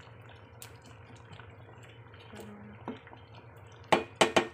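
Wooden spatula stirring soup in a steel cooking pot, with a few soft knocks and then three sharp clanks against the pot in quick succession about four seconds in. A low steady hum runs underneath.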